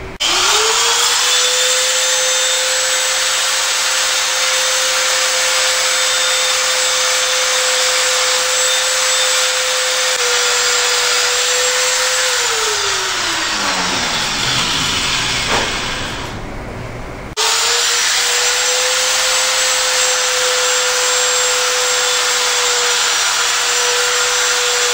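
Die grinder with a grinding burr running at a steady high-speed whine, radiusing the sharp-edged oil hole of an engine's rear main bearing cap. It winds down about halfway through, then runs again at the same speed for the last several seconds.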